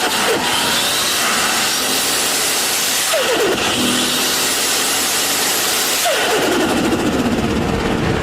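Turbocharged car engine revved and let off three times, each lift of the throttle bringing a falling pitch over a loud hiss of released boost. The last let-off, about six seconds in, breaks into a rapid stuttering turbo flutter.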